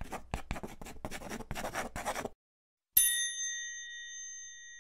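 A wooden stick scratching letters into a layer of flour on a wooden board: a quick run of short scratches that stops suddenly. Just under a second later a single bright bell-like ding rings out and slowly fades.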